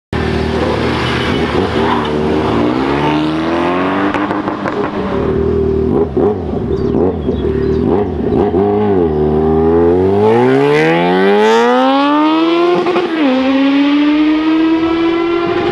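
Vehicle engines passing at a steady pitch, then a motorcycle pulls away hard: its engine pitch climbs steeply for about four seconds, drops sharply at a gearchange, and runs on steadily.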